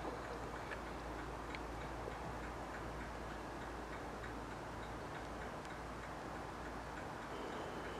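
Steady outdoor background rumble and hiss with a few faint, irregularly spaced ticks.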